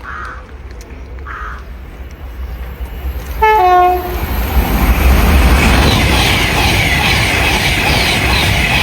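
A train sounds its two-tone horn, a short high note dropping to a lower held note, about three and a half seconds in. Then it passes at speed in a rising rush of wheel and rail noise with a steady clickety-clack of wheels over the rail joints.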